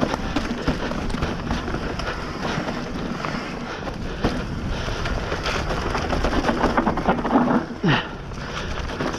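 Hardtail mountain bike riding fast down a dry, dusty dirt trail: tyres crunching over dirt and stones, with the bike rattling and knocking over bumps and wind noise on the microphone. A short sound gliding downward in pitch comes near the end.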